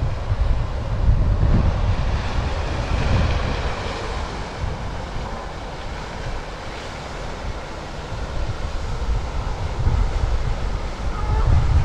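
Wind buffeting the microphone with a gusty low rumble, over a steady rush of moving water at a lake. The wind grows stronger near the end.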